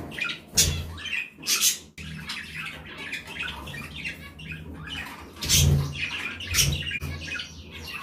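Caged pet birds chirping and squawking, with four sudden knocks and rattles from a hand working at the wire cage and feeder.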